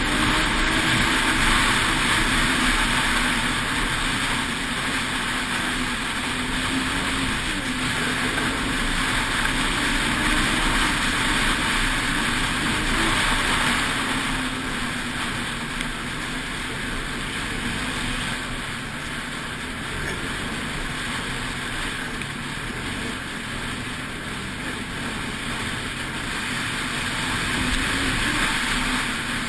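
Snowmobile engine running at speed on a trail, its pitch rising and easing with the throttle, under a steady rush of track, snow and wind noise.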